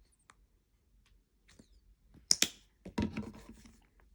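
Lotion being added to Model Magic clay slime: two sharp clicks a little past two seconds in, then about a second of wet squishing as the lotion and slime are handled.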